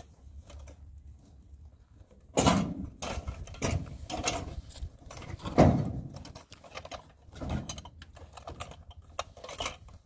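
Irregular knocks, clunks and rustles of objects being handled at the back of a pickup truck, starting a couple of seconds in, with the two loudest knocks about two and five and a half seconds in.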